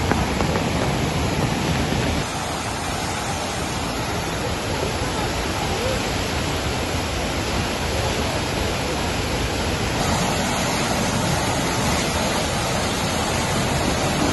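Muddy flash-flood torrent rushing through a washed-out road crossing, a steady loud rush of churning water. Its tone shifts about two seconds in and again near the ten-second mark.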